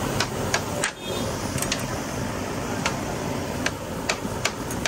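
Metal spatulas clinking and scraping on a flat-top griddle as chopped meat is turned, sharp irregular clicks over a steady sizzle.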